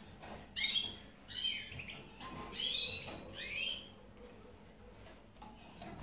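European goldfinches calling: about four short, high chirps with quick pitch sweeps in the first four seconds.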